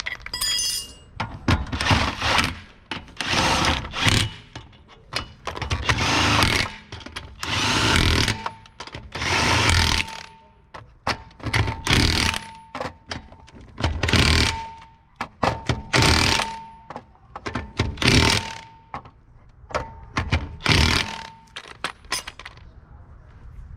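Impact wrench run in about a dozen short bursts, one every second or two, as on lug nuts or brake hardware.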